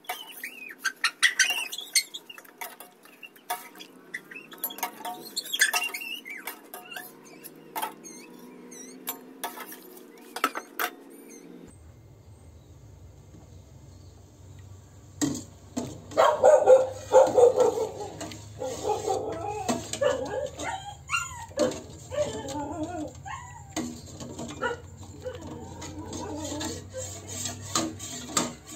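A metal ladle clinking, knocking and scraping against a steel stock pot while shrimp shells are scooped out and annatto powder is stirred into the broth. Wavering animal calls sound in the background, loudest a little past halfway.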